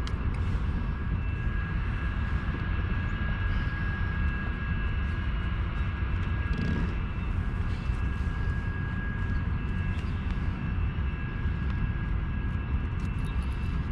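Steady low rumble of wind buffeting the head-mounted camera's microphone, with a thin, steady high tone underneath and a few faint handling clicks.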